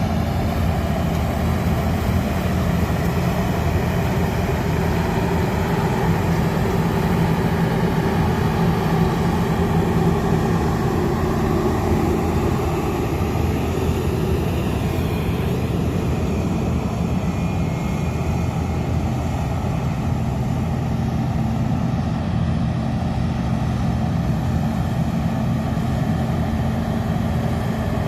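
A combine harvester's diesel engine and machinery running with a steady drone.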